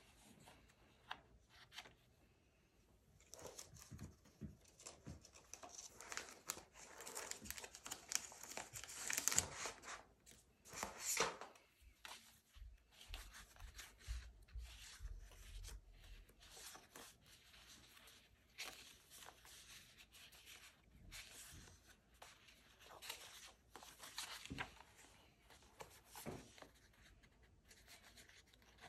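Paper sticker sheets rustling and crinkling as they are handled, with a louder tearing rip about nine to eleven seconds in, then scattered light taps and clicks of paper against the desk.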